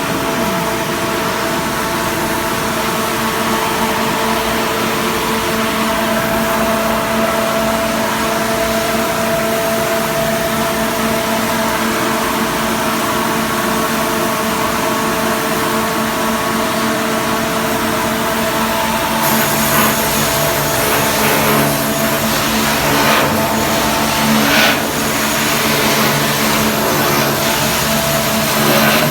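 A motor running steadily with a held whine. About two-thirds of the way through its sound shifts, gaining a deeper hum and more high hiss, with a few short knocks.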